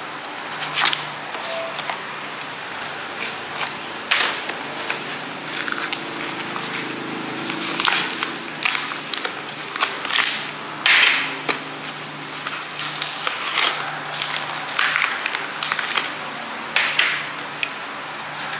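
Clear plastic blister packaging crackling and snapping in irregular sharp bursts as new differential side bearings are pushed out of their cardboard-backed clamshells, over a faint steady hum.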